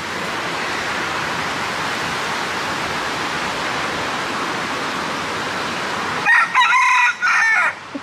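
Steady rush of a waterfall, which cuts off about six seconds in. A rooster then crows once, loud, for about a second and a half.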